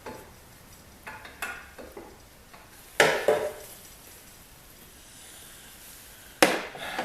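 Hand tools and metal parts being handled and set down: a few light clicks, then two loud metallic clanks about three seconds apart.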